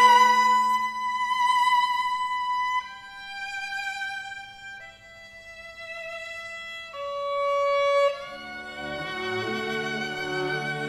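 String quartet playing: a violin holds long, slow notes, moving to a new pitch about every two seconds, and the lower strings come in beneath it about eight seconds in.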